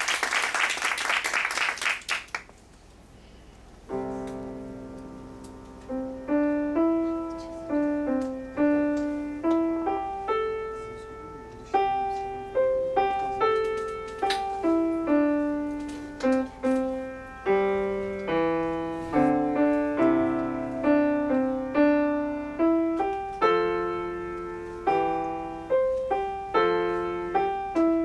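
Applause ends just after the start, and after a short pause a solo piano begins playing, a melody of struck notes over lower notes, each ringing and fading.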